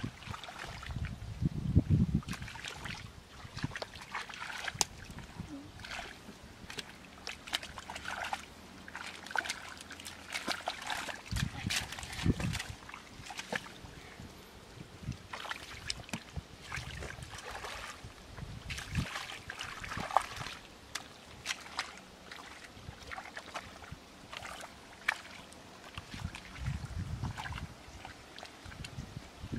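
Hands and feet working through soft mud and shallow muddy water: wet squelching and sloshing with many small scattered splashes and slaps, and a few low thumps.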